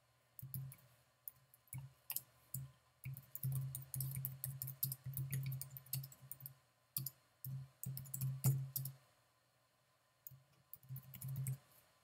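Typing on a computer keyboard: several bursts of quick keystrokes, each tap a sharp click with a dull knock, with short pauses between the bursts.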